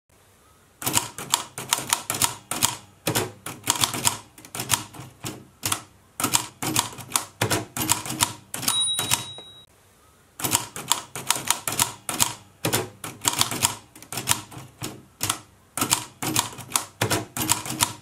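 Vintage manual typewriter being typed on: the keys and typebars clack in quick, uneven runs of strokes. About nine seconds in, the end-of-line bell dings once, and the typing stops briefly before starting up again.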